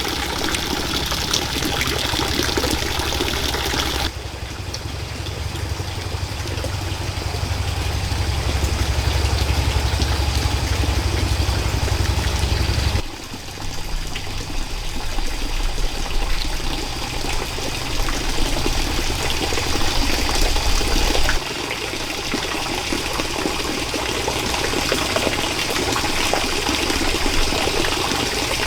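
Steady running and trickling water of a forest stream, with abrupt changes in the sound about 4, 13 and 21 seconds in. A low rumble sits under the water from about 4 to 13 seconds in.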